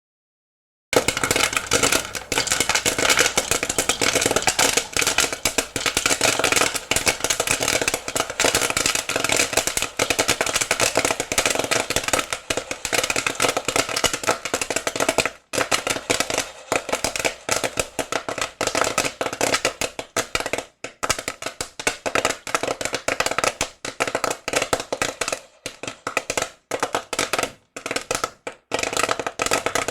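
Popcorn kernels popping in a pan: a dense, rapid crackle of pops that begins abruptly about a second in and thins out to more spaced pops after about halfway.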